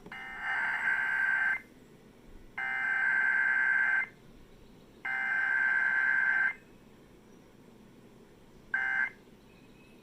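Emergency Alert System SAME header data bursts, the shrill two-tone digital warble that encodes the alert, sent three times, each about a second and a half long with about a second between them. Two short bursts of the same tones follow near the end.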